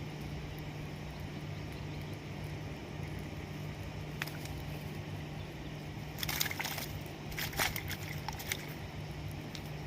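Short bursts of splashing water, one about six seconds in and another about a second and a half later, over a steady low hum.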